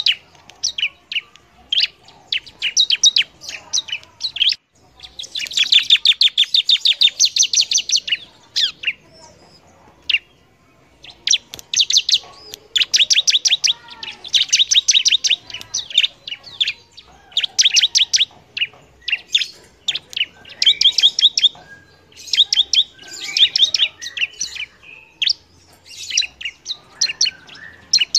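Ciblek (bar-winged prinia) singing a loud song of rapid, high-pitched repeated chirps in phrases of a few seconds, broken by short pauses, including one long fast trill about five seconds in.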